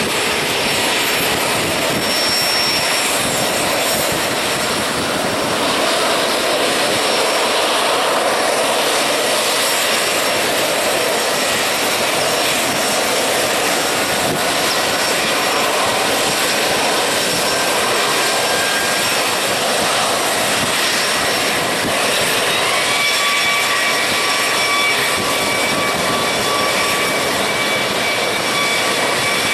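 Sikorsky CH-53 heavy helicopter running on the ground, its turboshaft engines and spinning rotors making a loud, steady roar. About three quarters of the way through, a steady high-pitched whine comes in on top of the roar and holds.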